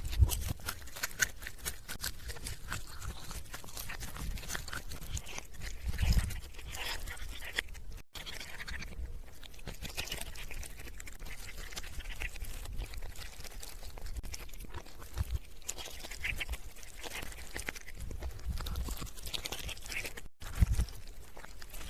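A cat chewing and crunching a chicken drumstick: a steady run of wet clicks and crackles as it bites on the meat and bone, with a few low thumps.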